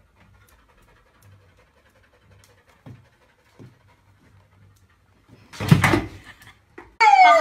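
Faint dog panting and soft knocks as a golden retriever climbs on a small stool, then a loud thump and clatter about six seconds in as it comes down. Near the end a child starts crying loudly.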